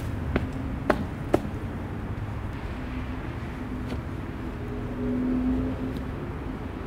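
Steady low outdoor rumble, with three sharp knocks in the first second and a half as gear is handled at an SUV's open rear hatch. A low vehicle hum builds from about three seconds in and is loudest just after five seconds, like a car passing in the car park.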